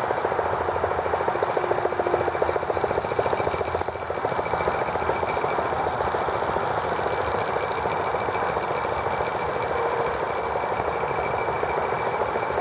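Small model gasoline engine on a T26 toy tractor, running at a fast, steady beat.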